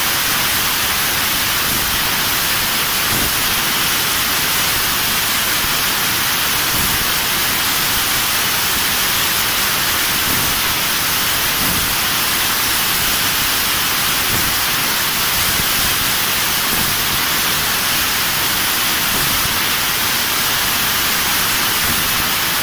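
Fiber laser tube cutting machine at work on a round metal tube: a steady, even hiss that does not change in level.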